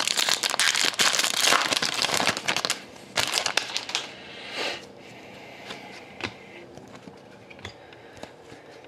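Wrapper of a 2012-13 Upper Deck Series 1 hockey card pack crinkling as it is opened, for about the first four seconds. Then it goes quieter, with faint scattered ticks of cards being handled.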